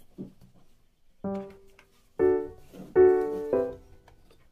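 Background piano music: a few slow chords struck about a second apart, each left to ring and fade.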